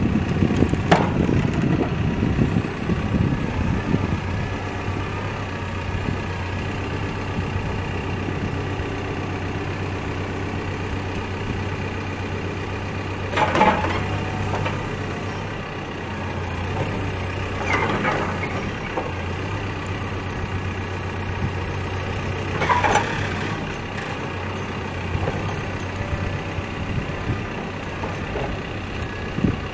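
CAT backhoe loader's diesel engine running steadily, louder and rougher for the first few seconds before settling, while the hydraulic controls are cycled. Three short, louder sounds stand out over the engine, about halfway through, a few seconds later, and again near the three-quarter mark.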